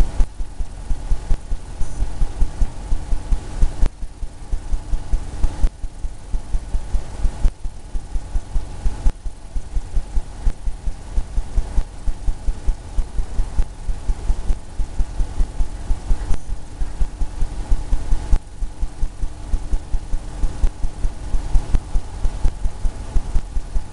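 Oil paintbrush dabbing against a stretched canvas: quick, even, soft low thumps, about four or five a second, that keep up without a break.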